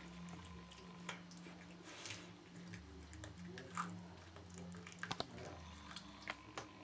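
Cat chewing and biting a raw chick: soft wet chewing broken by irregular small clicks and crunches, with a few sharper ones in the middle and about five seconds in.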